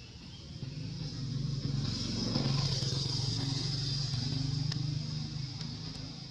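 A motor vehicle's engine running as it passes, growing louder over the first two seconds and fading toward the end.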